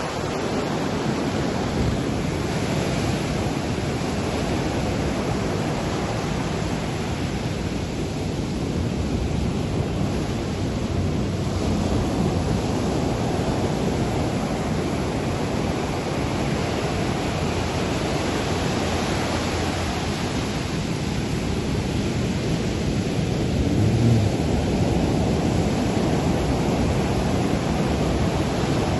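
Surf breaking and washing up the beach as a steady wash of noise, with wind buffeting the microphone.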